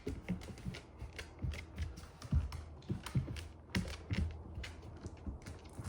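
Chocolate Labrador walking on a hard floor: claws clicking and paw pads thudding in an uneven pattern of several steps a second.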